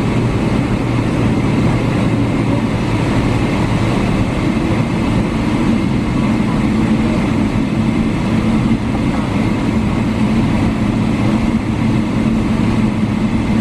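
Steady cabin noise inside a Boeing 777-300 rolling out on the runway after landing: the wing-mounted engines running low, with wheel and airframe rumble and a low hum.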